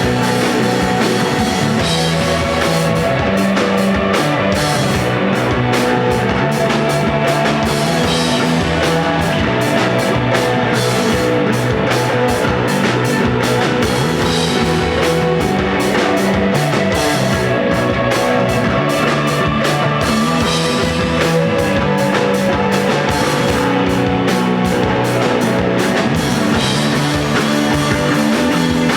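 Desert rock band playing live: electric guitar, bass and drum kit in a steady, loud instrumental passage.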